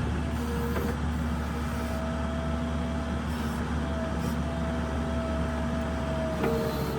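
New Holland LS170 skid steer's diesel engine running steadily while pushing snow, with a steady whine above the engine drone that drops a little in pitch near the end.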